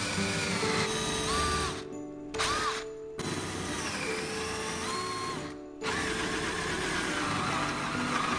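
A power tool running in several bursts, its motor whine dipping and rising in pitch as it loads and frees up, with short stops between bursts. Background music plays under it.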